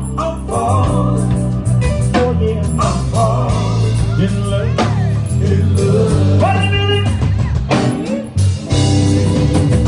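A live southern soul band playing a slow blues-soul groove, with bass, guitar and drums, and a man singing wordless vocal runs over it.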